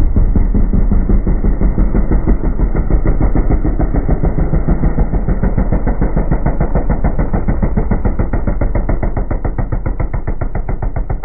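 Flat track racing motorcycle engine running hard through the turns, a rapid, even pulsing exhaust note that eases slightly near the end.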